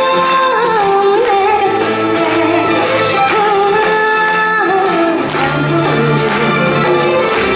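A woman singing a slow Korean trot song live into a handheld microphone over instrumental accompaniment, holding long notes.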